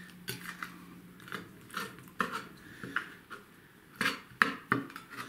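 Kitchen knife scraping and tapping on a plastic cutting board while a small fish is gutted, with a few sharper knocks of the blade against the board about four seconds in.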